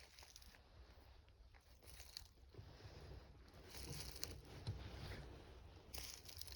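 Faint crunching and rustling of footsteps through dry leaves and brush, louder from about two and a half seconds in.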